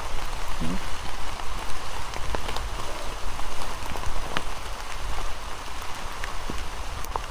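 Heavy rain falling steadily, an even hiss with scattered sharp clicks of single drops.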